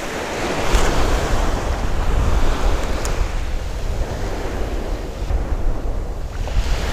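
Small surf waves washing up and draining back on a sandy shore, swelling about a second in and again near the end, with wind rumbling on the microphone.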